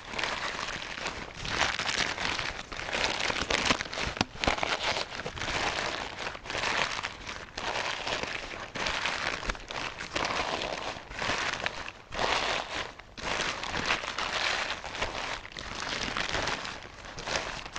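Clear plastic sheeting being crumpled and rustled: a dense crinkling crackle that swells and fades in irregular surges about a second apart.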